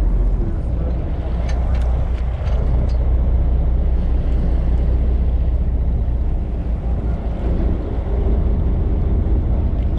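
Steady low rumble with water washing along a fishing boat's hull, and a few faint ticks about two seconds in.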